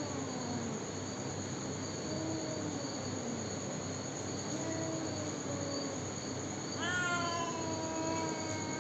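A jungle cat giving drawn-out calls, about four of them, the longest starting about seven seconds in and lasting some two seconds. Under them is a steady chorus of crickets.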